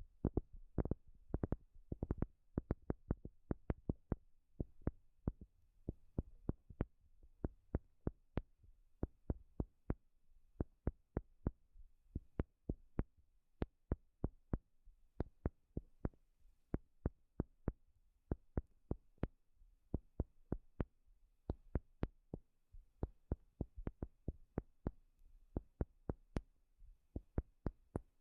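Tapping on a wooden surface: a steady stream of quick, short taps, a few a second in uneven groups, with a dull low knock to each.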